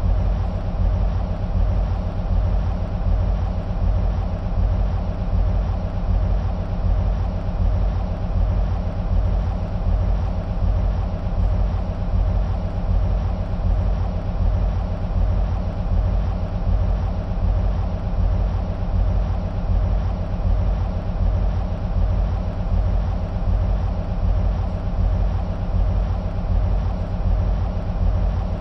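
EMD SW1500 switcher locomotives' 12-cylinder two-stroke EMD 645 diesels idling steadily: a deep, low rumble with a regular pulsing beat.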